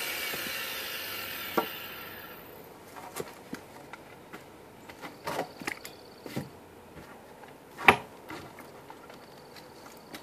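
A power saw's noise fades out over the first two or three seconds. After that come scattered knocks and clatters of lumber being handled and set down, the loudest a sharp knock about eight seconds in.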